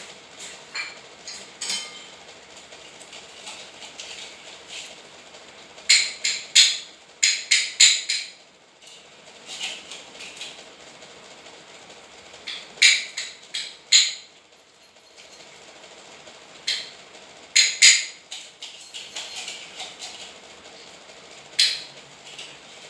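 Spoon clinking and tapping against dishware while cat food is served, in several short bursts of quick sharp clicks, the loudest a run of about eight taps around six to eight seconds in.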